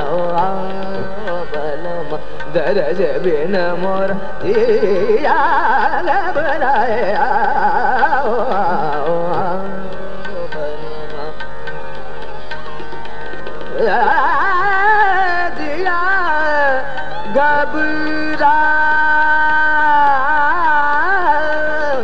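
Male Hindustani classical voice singing khayal in Raga Yaman over a tanpura drone, with tabla. Quick melodic runs fill the first half; after a lighter stretch, long held notes with slides between pitches return about two-thirds of the way in.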